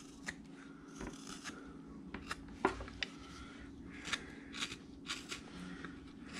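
Upsweep carving knife shaving wood in a series of short, faint scraping cuts, cleaning off gouge marks, over a faint steady hum.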